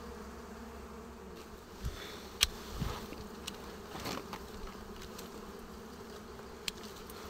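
A colony of dwarf honeybees (Apis florea) buzzing steadily around their open comb. A few sharp clicks and rustles of handling come over the hum, the loudest about a third of the way in.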